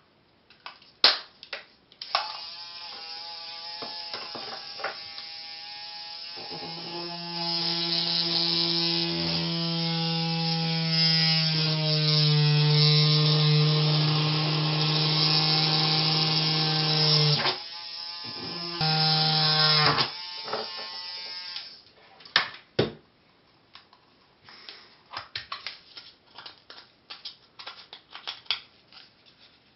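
Small handheld rotary tool drilling holes in a thin plastic battery box: the motor whines steadily, its pitch shifting a few times, and cuts out briefly twice before it stops about two-thirds of the way through. After that come light clicks of the plastic box being handled.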